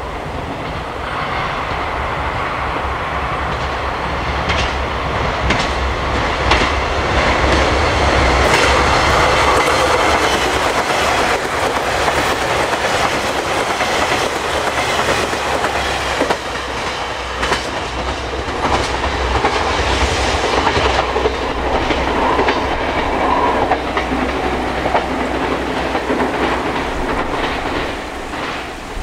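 JR Shikoku 2000-series tilting diesel express train passing at speed: its diesel engines run under a dense rush of wheel noise, and the wheels clatter sharply over rail joints. The sound builds over the first couple of seconds and dies away near the end.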